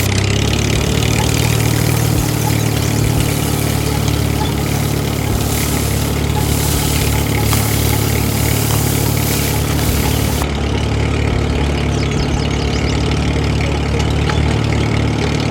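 An engine running steadily with a low hum, without revving.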